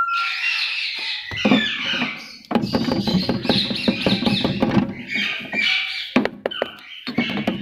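Small cage birds chirping and squawking. From about two and a half seconds in, a dense run of rapid clattering knocks joins them.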